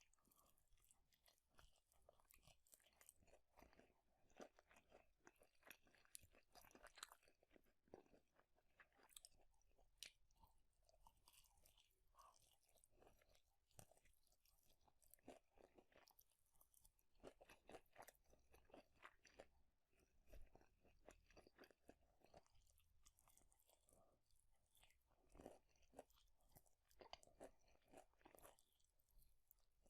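Quiet close-miked chewing of food, with crisp crunches and wet mouth clicks coming irregularly several times a second.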